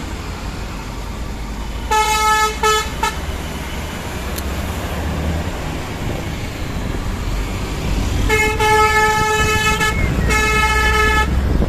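A single-tone vehicle horn honking: three quick toots about two seconds in, then two long blasts near the end, over the steady low rumble of riding on the road.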